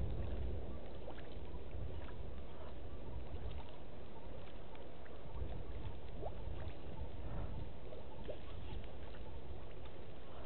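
Outdoor bush ambience: a steady low rumble, a little stronger at the start, with scattered faint ticks and a few brief chirps.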